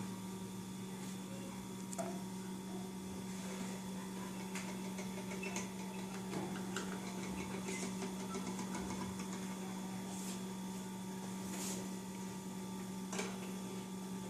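Steady low electrical hum, with faint light clicks and scratches from hands handling the fan and the cardboard box lid.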